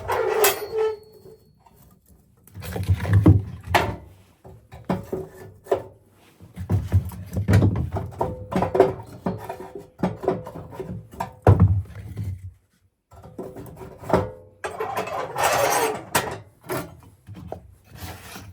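Irregular wooden knocks and low thumps in clusters, with rubbing and scraping between them and one longer scrape near the end, as of wood being handled.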